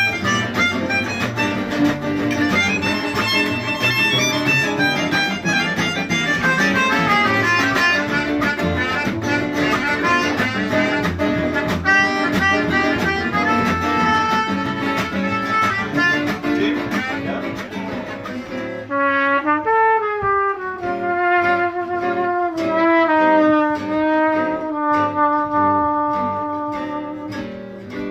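Gypsy swing band playing live: a melodica lead over two strummed acoustic gypsy-jazz guitars and a cello. About 19 seconds in the music changes to a slower passage of long held melody notes from trumpet and clarinet, with accordion, guitar and cello beneath.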